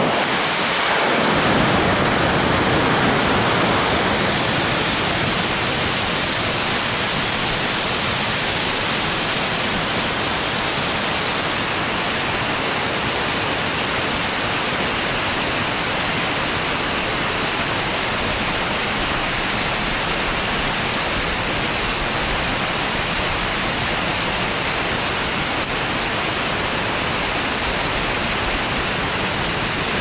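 Waterfall pouring over rock, heard from inside the falling water and spray: a loud, steady rush. It swells over the first couple of seconds and then holds even.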